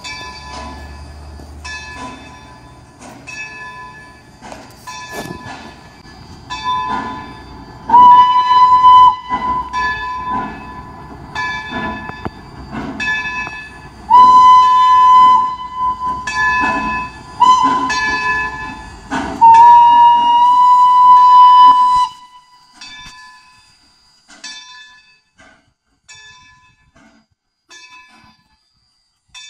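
A train sounding its grade-crossing signal: four loud blasts, long, long, short, long, on a chord of several tones. Under them a locomotive bell rings steadily, and it goes on more sparsely and faintly after the blasts stop.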